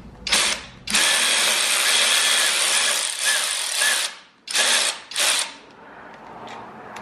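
Cordless power driver spinning bolts out of an engine: a short burst, a steady run of about three seconds, then two short bursts about four and a half seconds in.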